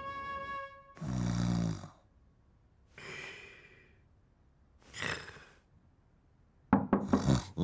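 Cartoon snoring: a deep, loud snore about a second in, then a softer, higher whistling breath out, and another breath a little later. Near the end, a quick run of sharp knocks.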